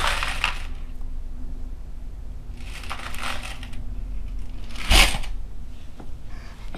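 Coins sliding and clattering inside a clear coin bank jar as it is tipped back and forth, in a few separate rattles. A sharper, louder clunk of coins comes about five seconds in, as the jar is set back upright.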